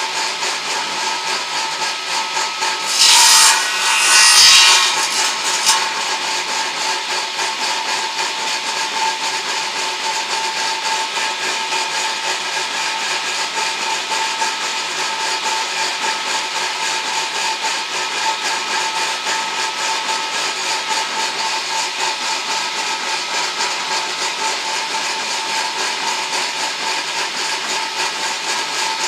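Homemade edging saw, a power-driven circular saw, running with a steady whine. It grows louder and harsher for about two seconds near the start as it cuts wood.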